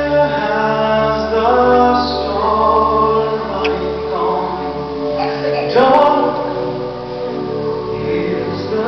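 A song sung by several voices together over music, the melody moving through held notes.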